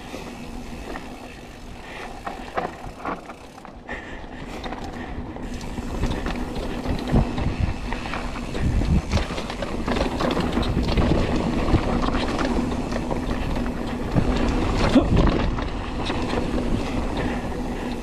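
Mountain bike riding down a rough dirt trail: a continuous rumble of tyres over the ground with frequent knocks and rattles from the bike over bumps, getting louder about six seconds in.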